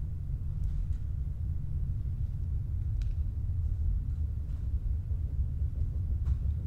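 Steady low rumble of room noise in a large indoor training hall, with a few faint soft taps of a person stepping and lunging on artificial turf.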